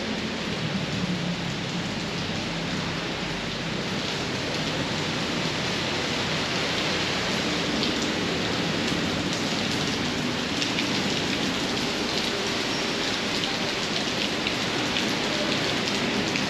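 Heavy tropical rain falling steadily, with a faint low steady hum underneath.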